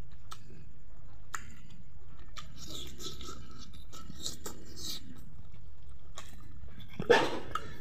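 Close-up eating sounds: fingers pressing rice and pork fat on a plate, and the mouth chewing, with faint clicks and soft smacks. A short, loud burst of a voice comes near the end.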